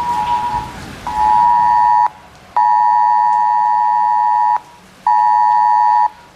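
A phone's Wireless Emergency Alert attention signal, a harsh two-note tone, sounds in repeated long and short blasts with half-second gaps. Here it announces a flash flood warning.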